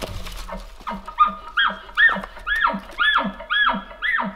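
A rapid series of elk cow mews, about seven short nasal calls at roughly two a second starting about a second in, each rising then falling in pitch.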